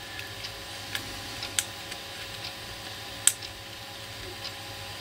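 Small, sharp clicks and taps of fingers handling a plastic-and-metal H0 model railway wagon underframe, with the sharpest click about three seconds in, over a faint steady hum.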